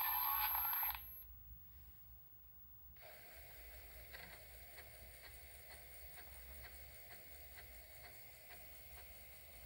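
Music played back on an Apple II cuts off about a second in. After a short near-quiet gap, a faint, regular ticking starts about three seconds in and goes on at a little over two ticks a second.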